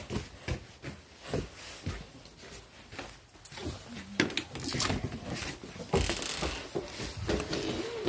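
Handling noise from a phone being carried through a house: irregular knocks and rubbing, with brief voices in the background.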